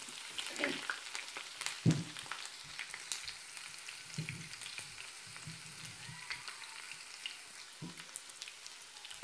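Chopped onions and green chillies sizzling in hot oil in a non-stick frying pan as they are stirred with a spatula that scrapes and taps against the pan. One louder knock comes about two seconds in.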